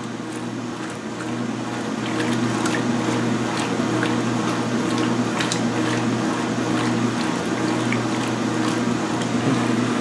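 2016 Speed Queen top-load washer agitating a load of towels: wash water sloshing in the tub over a steady machine hum, a little louder after the first couple of seconds.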